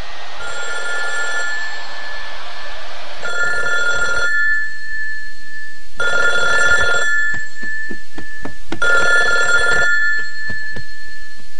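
A telephone ringing: rings of about a second each, repeating about every three seconds.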